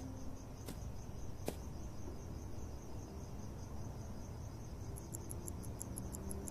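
Crickets chirping in a steady, evenly repeating rhythm, with a couple of sharp clicks in the first two seconds. About five seconds in, a second, faster and higher-pitched chirping joins.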